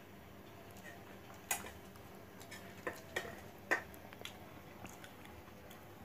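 A handful of light, sharp clicks and taps of fingers and torn roti against stainless steel plates while eating egg bhurji by hand, the loudest a little past the middle, over a faint steady room hum.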